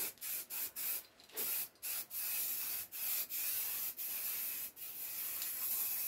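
Aerosol can of weld-through primer spraying onto a bare steel wheel-arch panel: a hiss in a run of short bursts, broken by brief gaps, that stops abruptly at the end.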